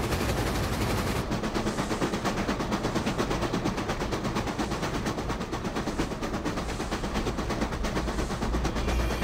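Steam locomotive running at speed, its exhaust chuffing in a rapid, steady beat.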